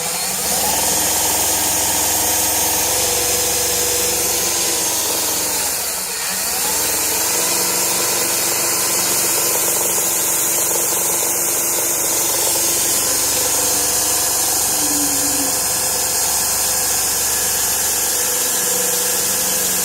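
Electric drill boring through the wooden wall of a box, its motor spinning up at the start, easing off briefly about six seconds in, then running steadily at full speed again.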